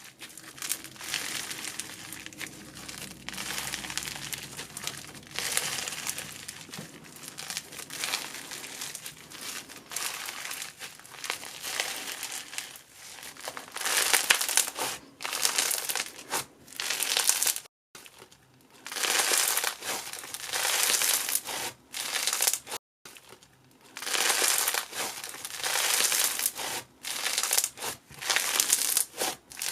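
Hands squishing, poking and stretching slime, making a crinkly, crackling sound in repeated stretches of a second or two, broken by two abrupt cuts.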